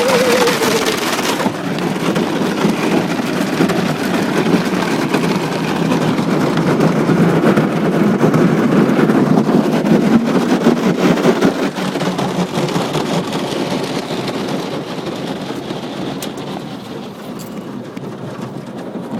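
Automatic car wash spraying water over a car: a loud, dense rushing and drumming that eases off over the last several seconds.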